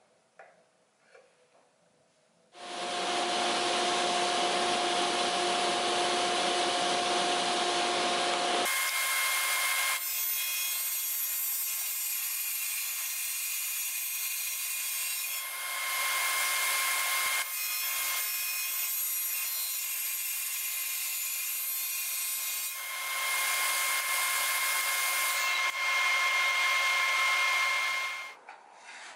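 A few faint clicks, then a sliding table saw starts up about two and a half seconds in and runs with a loud, steady whine, its tone changing abruptly several times, and stops shortly before the end.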